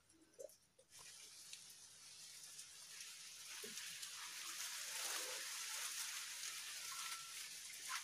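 Water sloshing and splashing around hands groping along the bed of a shallow muddy stream, feeling for an eel burrow. It starts about a second in and grows louder toward the middle.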